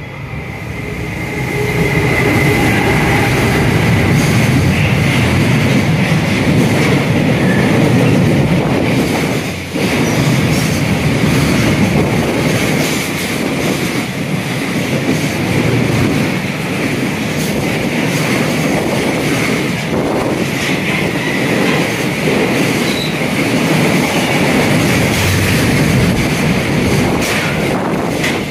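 Train running through the station on the rails, with clickety-clack and a steady high-pitched wheel squeal throughout, the sound dipping briefly about ten seconds in.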